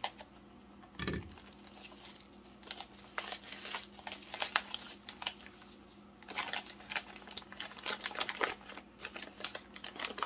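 Packing paper crinkling and rustling in irregular bursts as a wrapped piece is unwrapped by hand, with a low thump about a second in.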